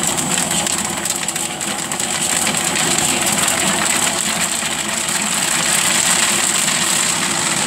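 Steady mechanical running noise, engine-like, with a constant high whine over it.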